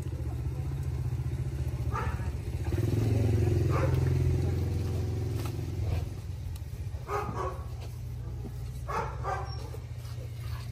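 A motor engine running steadily, growing louder for about three seconds in the middle before settling back, with a few short snatches of voices.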